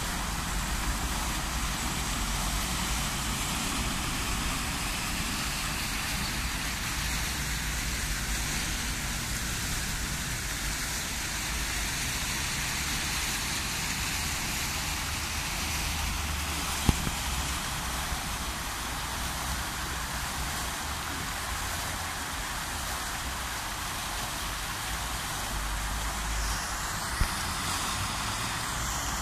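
Park fountain jets splashing into their water-filled basin: a steady rushing hiss of falling water, with a sharp click about seventeen seconds in.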